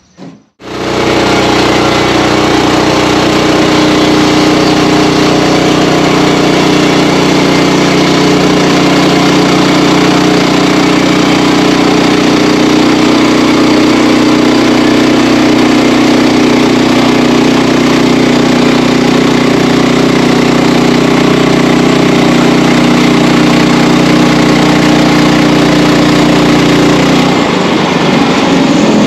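Sawmill engine running loudly and steadily. It cuts in abruptly about half a second in and changes tone near the end.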